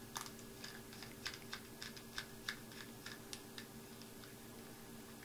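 Small screwdriver backing a tiny screw out of a clear acrylic clock case: faint, irregular little clicks and ticks as the tool works the screw and the case is handled.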